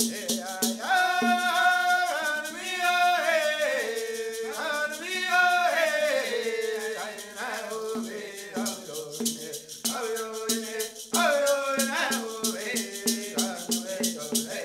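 A Haudenosaunee Women's Dance song: voices singing together over a shaken rattle keeping a steady fast beat, with a steady low drum-like tone beneath. The singing breaks off briefly a little past the middle, then picks up again while the rattle goes on.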